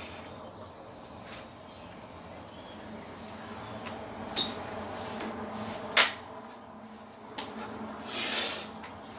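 Movement sounds of a martial arts form performed on a wooden deck: a few sharp snaps and knocks from strikes and steps, the loudest about six seconds in, and a short hiss of air near the end.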